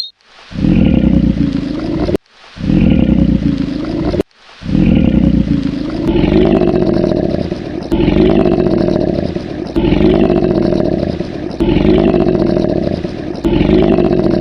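A large animal's low, rough calls, repeated about every two seconds, each with a falling higher overtone, and broken by two abrupt gaps in the first few seconds.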